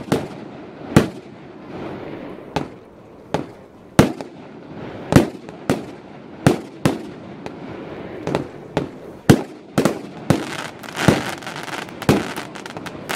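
Fireball (cosmos) consumer fireworks cake firing its shots in sequence. Each one is a sharp bang, coming about one or two a second over a steady hiss. About ten seconds in they thicken into a dense rush of rapid pops and hiss.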